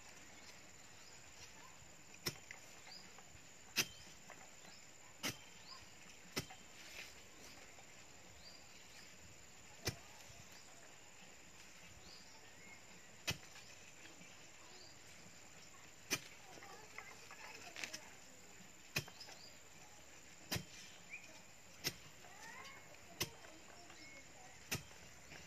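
A long iron digging bar jabbed into the soil to make a fence-post hole, striking the ground with about a dozen sharp knocks at uneven intervals.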